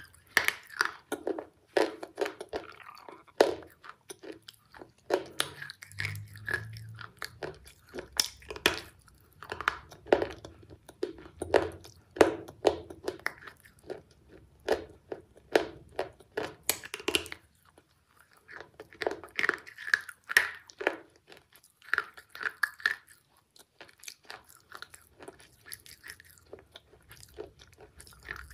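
A person biting and chewing a crisp brown snack right at the microphone, giving irregular crunches one after another. There is a short lull about two-thirds of the way in, then softer chewing before the crunching picks up again.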